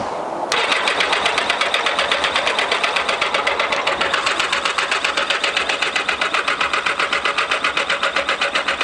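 Yamaha XJ900 Diversion's air-cooled inline-four being cranked on the electric starter with the choke on, a fast, even pulsing that starts about half a second in. The engine spins over briskly on a battery with plenty of charge but does not fire.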